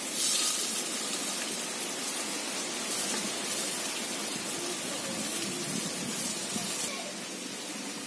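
Chopped onions hitting hot oil in a clay pot and sizzling, loudest as they go in, then a steady hiss that dies away near the end.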